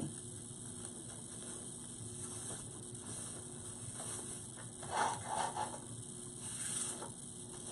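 Faint rustling and small clicks of wired ribbon being handled while bow loops are formed, a little louder about five seconds in.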